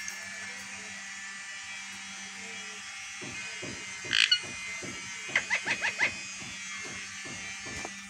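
Alexandrine parakeet giving one loud squawk about four seconds in, then a quick run of about five short chirps, over a steady low buzz.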